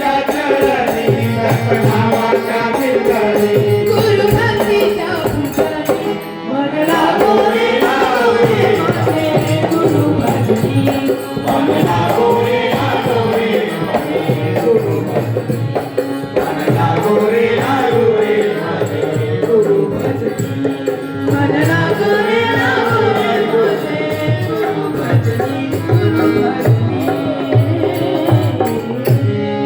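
Devotional bhajan music: a harmonium melody over a steady dholak beat, with voices singing along.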